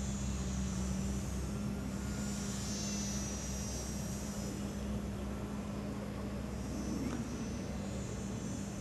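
High-pitched whine of a micro solar-powered RC model plane's tiny electric motor and propeller, driven directly by two solar cells with no battery. The whine wavers up and down in pitch as the plane flies past, over a steady low hum.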